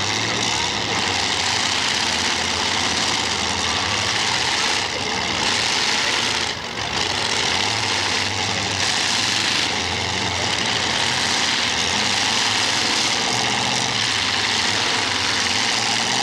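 Race car engines running loud and steady during a feature race, with a short dip in the noise about six and a half seconds in.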